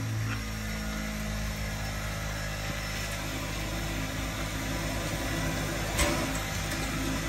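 Frisco 1630, a 2-10-0 steam locomotive, standing at rest: a steady low hum over a constant hiss, with one sharp click about six seconds in.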